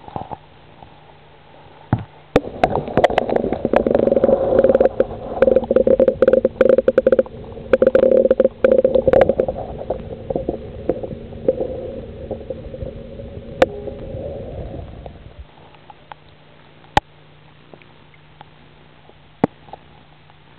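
Muffled gurgling and sloshing of water picked up by a camera submerged in a bucket of fish, with many sharp knocks. It starts about two seconds in, lasts about thirteen seconds, then drops to a faint steady hum with a few isolated clicks.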